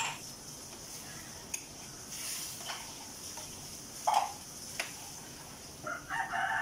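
Wooden spatula and metal ladle stirring in a steel wok, with a few scattered clinks and knocks against the pan, the loudest about four seconds in, over a steady hiss from the gas burner and cooking liquid. A steady held tone starts near the end.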